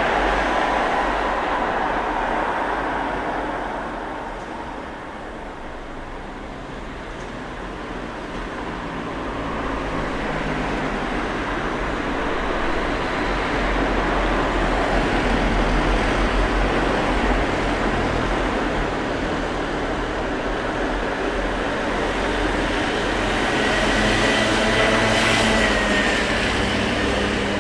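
Urban street ambience: a continuous wash of traffic noise from passing vehicles that swells and fades as they go by. Near the end a louder vehicle passes, carrying a thin high whine that dips slightly in pitch.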